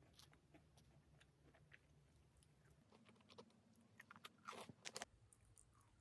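Faint chewing and crunching of food by a person eating, with a cluster of louder crackly bites about four to five seconds in.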